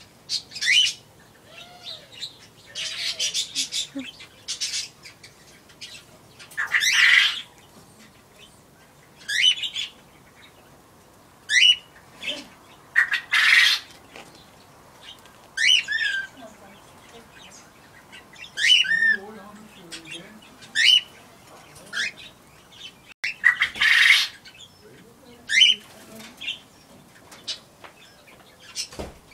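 Pet budgie and quail: short sharp calls falling in pitch, repeated every couple of seconds, with several bursts of flapping wings.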